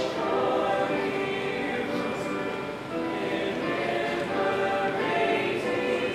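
Student choir of mixed voices, girls and boys, singing in harmony with sustained notes.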